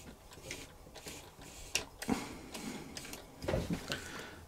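Scattered light clicks and taps from a Singer 201K sewing machine's needle-bar mechanism being turned over by hand while it is oiled, the dry linkage working in fresh oil; a few louder knocks come about two seconds and three and a half seconds in.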